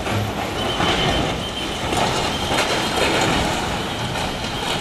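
Landslide: rock and debris tumbling down a slope, a continuous rumble with scattered clattering impacts.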